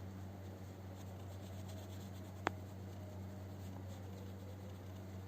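Faint paintbrush strokes rubbing over the surface as paint is shaded on, over a steady low hum. One sharp click comes about halfway through.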